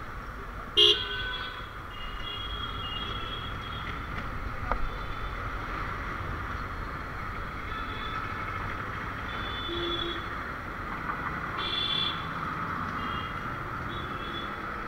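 Motorcycle riding slowly through street traffic: steady engine and road noise, with short horn beeps scattered throughout. The loudest is a sharp toot about a second in, and another sounds near twelve seconds.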